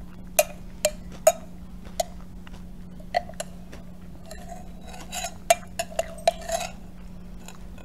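Metal spoon clinking and scraping against the inside of a glass cup while scooping thick smoothie with granola: about ten sharp clinks, with a stretch of scraping in the middle to later part.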